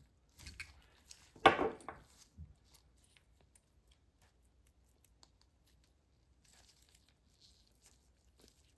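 Faint scattered clicks of stainless steel orthodontic wire and pliers being handled, with one short, louder rustling scrape about one and a half seconds in.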